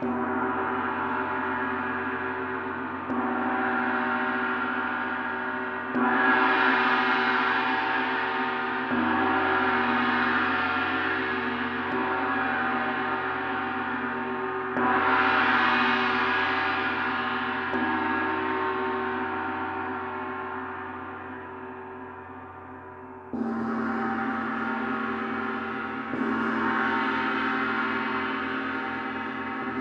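Planetary gongs struck again and again, a few seconds apart. Each stroke renews a dense, sustained wash of ringing overtones that slowly fades before the next.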